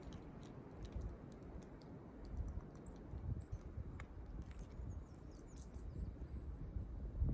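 Small wild birds giving short, thin, very high calls between about five and seven seconds in, over scattered light clicks and taps, with a low rumble underneath.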